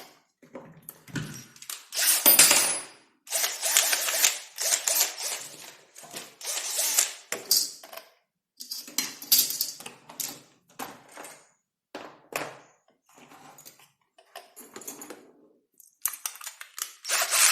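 Small hard parts and tools clattering and rattling as they are handled, in a series of short irregular bursts.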